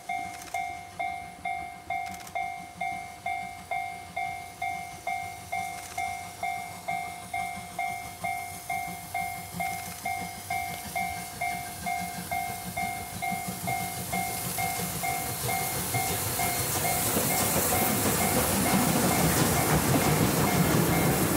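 A level-crossing warning bell rings over and over, about two and a half strikes a second. From about twelve seconds in, the C58 steam locomotive and its passenger coaches pass close by, and their rumble, hiss and wheel clatter on the rails grow until they nearly cover the bell.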